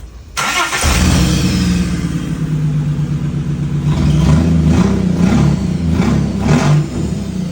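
Holden VX Commodore engine running with an unresolved misfire. It starts abruptly and is revved in a few short blips in the second half. New spark plugs, coils and a cam sensor have not cured the misfire.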